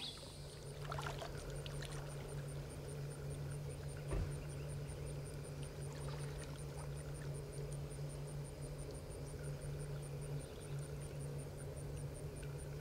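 River ambience around a kayak: an insect ticking at a high pitch several times a second over a low steady hum, with faint trickling water and a single knock about four seconds in.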